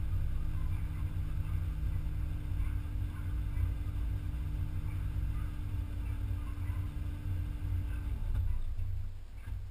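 BMW Z3 engine idling steadily, then switched off about eight seconds in, its idle hum cutting out abruptly.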